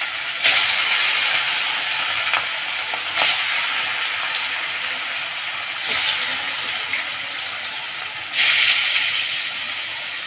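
Marinated rohu fish pieces sizzling in hot oil in a kadhai, the sizzle surging suddenly four times, every two and a half to three seconds, as each new piece is laid into the oil.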